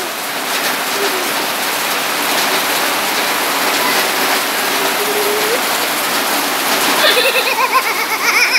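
Heavy rain falling steadily as a loud, even hiss, with a person's voice calling out near the end.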